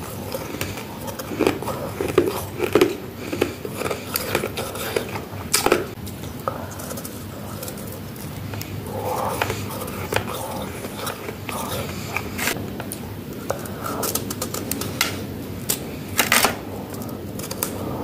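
Close-up crisp crunching as soft freezer frost is bitten and chewed. The crunches come in irregular clusters of sharp crackles.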